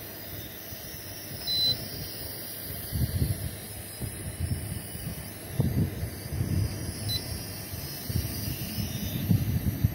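Toy quadcopter drone's propellers whirring, with wind gusting on the microphone in low rumbles. A short high beep sounds about a second and a half in, and a fainter one near seven seconds.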